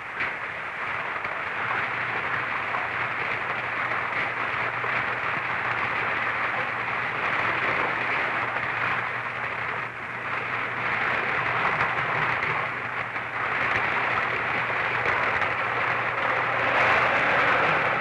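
Seawater spraying under pressure from a drill hole broken through to the sea, a steady hiss that starts abruptly and dips briefly twice.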